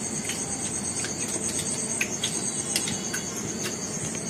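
Eating sounds: scattered sharp crunches and clicks as pizza and flaky egg puffs are bitten and chewed, over a steady high pulsing chirr.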